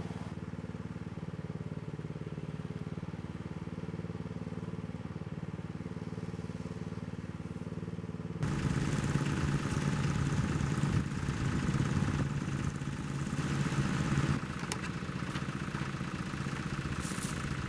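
A steady engine-like drone, which turns abruptly louder and rougher about eight seconds in.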